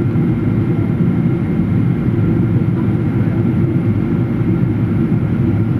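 Boeing 777 jet engines and rushing air making a steady low drone, with a faint steady high whine on top.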